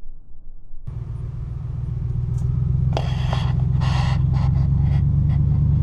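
Vehicle engine and road rumble heard from inside the cab as it drives off, a low steady drone that comes in suddenly about a second in and grows louder over the next second or two. Two short, sharp hissy noises break in about three and four seconds in.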